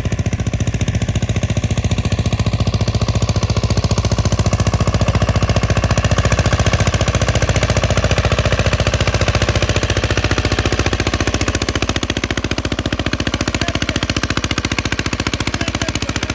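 Engine running steadily at constant speed, with a fast, even, knocking beat.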